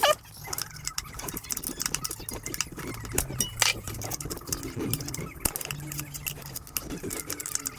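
Scattered clicks and metallic taps of hand tools working on the internals of a 4L60 automatic transmission, with a low steady hum underneath.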